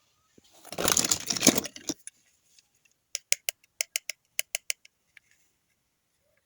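Toy packaging being handled: a dense crinkling, tearing noise lasting about a second, then a quick run of about a dozen sharp clicks.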